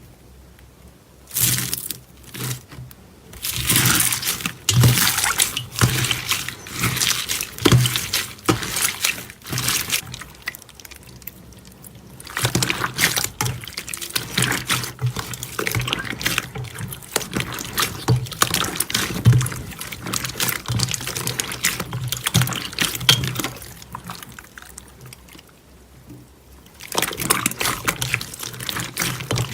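Slime being squished and poured, making wet, sticky crackles and pops in quick runs, with a few short pauses.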